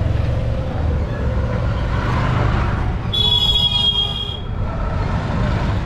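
Steady rumble of busy street traffic, with a vehicle horn honking once for just over a second about three seconds in.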